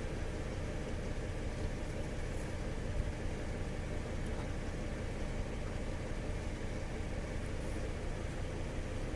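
Opel four-cylinder petrol engine idling steadily.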